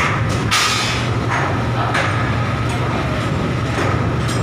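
Container being lowered by a crane spreader: a steady machinery hum with a thin high whine, and a few metal knocks from the container and spreader, the loudest about half a second in.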